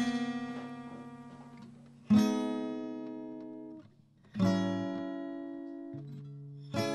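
Acoustic guitar music: slow strummed chords, each left to ring and fade before the next, about every two seconds.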